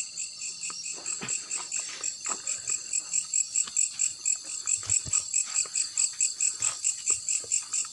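Insects chirping in a fast, even pulse of about five chirps a second, with faint scattered clicks and knocks underneath.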